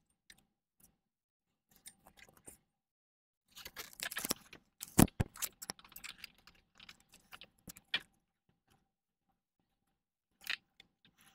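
Scattered plastic clicks and rattles from nylon zip ties and an LED light strip being handled and fastened to the golf cart's frame bar, with a cluster of sharper clicks about four to five seconds in.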